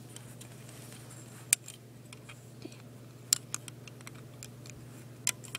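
A handful of sharp clicks and taps from a metal loom hook and fingers working rubber bands on a plastic Fun Loom's pegs, the loudest about one and a half seconds in, over a faint steady hum.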